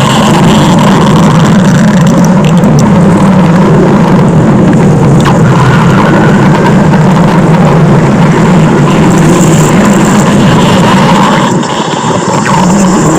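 Loud, heavily distorted stomach-growl sound effect: a continuous low rumble, dipping briefly near the end.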